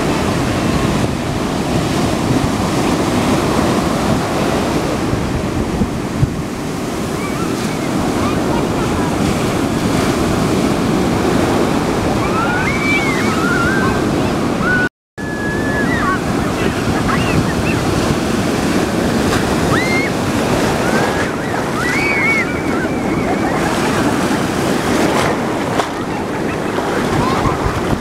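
Heavy ocean surf breaking and washing up a sand beach in a steady, dense rush, with wind buffeting the microphone. The sound cuts out for a moment about halfway through.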